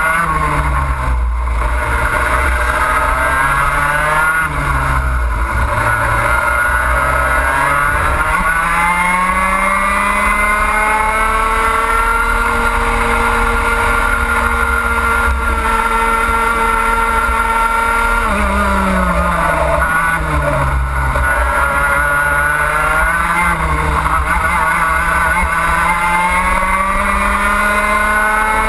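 Racing kart engine heard onboard, revving up along the straights and dropping sharply under braking for the corners. It climbs for several seconds, holds high revs for about six seconds, drops sharply, then climbs again, over a steady low rumble.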